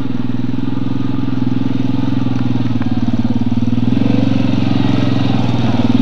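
Yamaha Grizzly ATV engine running at low trail speed, steady, with the throttle and loudness coming up a little about four seconds in.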